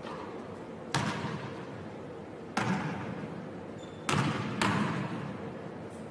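Basketball striking the hardwood gym floor and hands during a shooting drill: four separate hard thuds, spaced irregularly a second or so apart, two of them close together near the middle. Each one rings on in a long echo in the large gym.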